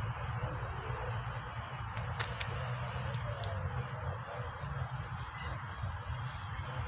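Steady low outdoor rumble with faint insect chirring, and a few light clicks about two to three seconds in.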